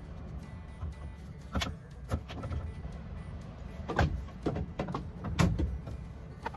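Resin-coated steel Erector pipes and plastic joints knocking and clacking together as they are pushed and fitted into a frame, several sharp knocks, the loudest about four and five and a half seconds in, over a steady low rumble.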